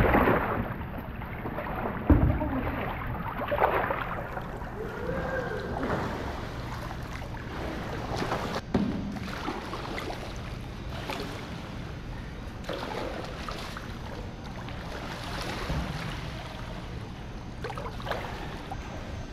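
Water splashing and lapping around a Zet Chili whitewater kayak as it slides off the pool edge into the water and is paddled about, with a sharp thump about two seconds in.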